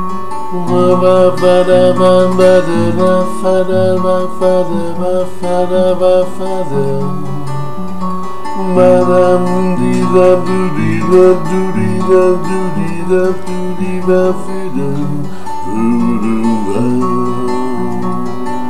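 Acoustic guitar played solo, a steady pattern of picked and strummed chords making up a song's instrumental introduction.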